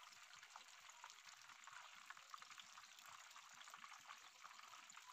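Pork leg deep-frying in a pan of oil: a faint, steady sizzle with fine crackling.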